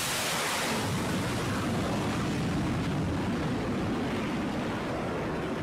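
F/A-18 fighter jet's engines at full power during a steam-catapult launch from an aircraft carrier deck. A hissing rush loses its highs after about a second, leaving a deep rumble as the jet moves away.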